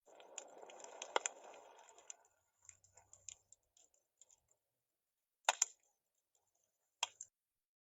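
Quiet handling noise: a soft rustle fading away over the first two seconds, scattered small ticks, then two sharper clicks about a second and a half apart near the end, as buttons are pressed to select a sound scene.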